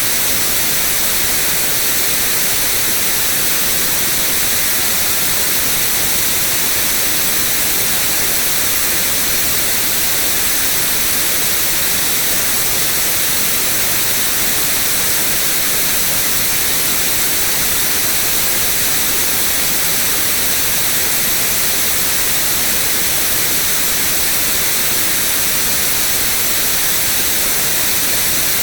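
Loud, steady white noise: an even hiss that does not change, strongest in the highs.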